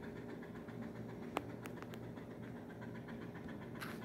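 German Shepherd puppy panting softly, with a few sharp clicks about a second and a half in and a brief rustle near the end.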